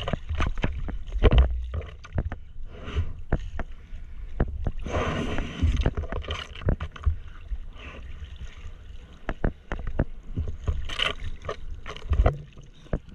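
Seawater splashing and sloshing around a foam surfboard as a surfer paddles through choppy water, with many irregular sharp splashes over a low rumbling wash.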